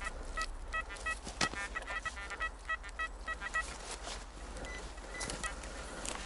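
XP Deus metal detector giving a quick run of short electronic beeps for about three and a half seconds, the sign of the coil passing over metal in the ground, then a few fainter beeps about five seconds in. Light crackling of footsteps or forest litter underneath.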